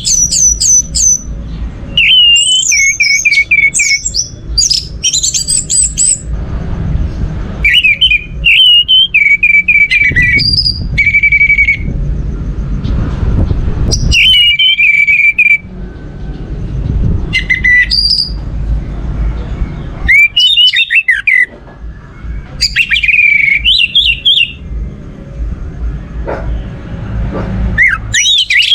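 Orange-headed thrush singing: loud phrases of varied whistles and trills, some dropping in pitch, each a second or two long with short pauses between, over a steady low rumble.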